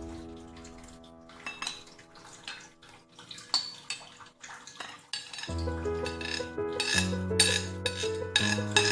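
A spoon clinking and scraping against a glass bowl while beaten eggs are poured into milk and stirred, over background music that is faint at first and louder from about halfway through.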